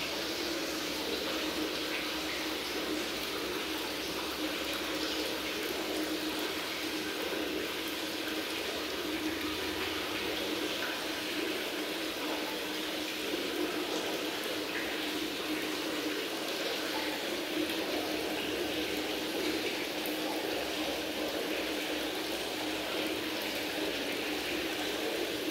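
Aquarium water circulation running steadily: an even trickle of moving water with a constant low hum underneath.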